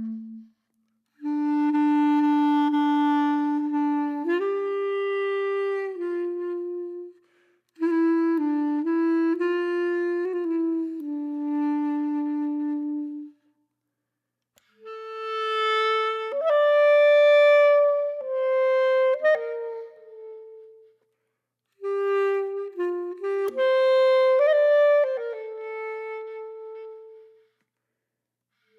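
Background music: a solo melody on a reedy woodwind instrument, held notes in four slow phrases with short silences between them.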